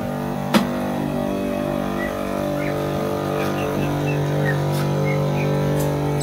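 A small engine running with a steady drone, while birds chirp here and there over it; a single sharp click about half a second in.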